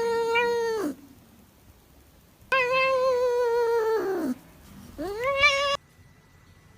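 Domestic cat yowling: three long, drawn-out meows, the second dropping in pitch as it ends and the third shorter, sliding up at its start.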